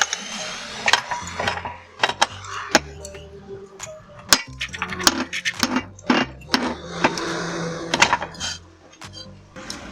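Metal parts and tools clinking and knocking in quick, irregular taps, with short stretches of hiss, over background music.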